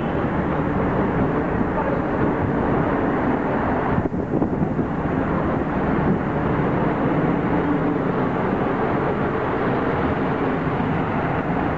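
Steady, loud drone of diesel engines inside a car ferry's enclosed vehicle deck, with a few knocks about four seconds in.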